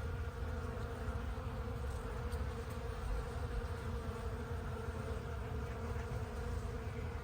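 A steady buzzing drone that holds level with no breaks.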